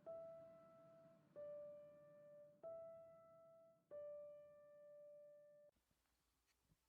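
Faint background piano music: four slow, single held notes, one about every second and a quarter, which stop near the end.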